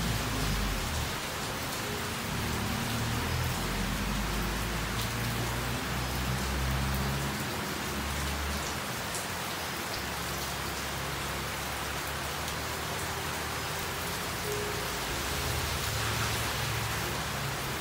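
Steady rain falling, an even hiss of drops. A low rumble comes and goes under it in the first half.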